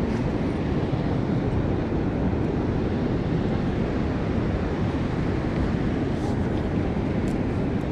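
Steady low rumble of wind buffeting the microphone over breaking ocean surf.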